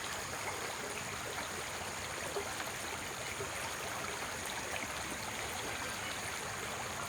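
Steady, even white-noise rush with the sound of a flowing stream, unchanging throughout.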